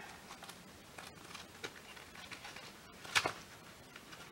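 Faint rustling of paper banknotes being slipped into a cash envelope, with one louder rustle about three seconds in.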